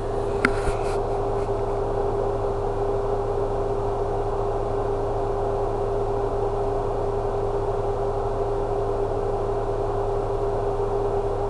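Steady room hum with a constant droning tone and hiss, with a couple of light clicks about half a second in.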